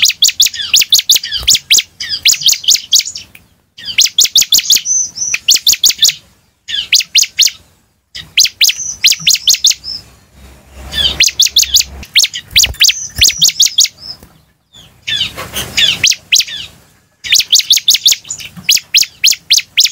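A ciblek, a small prinia, singing loud phrases of rapid, sharp high notes, each phrase lasting a second or two with short pauses between.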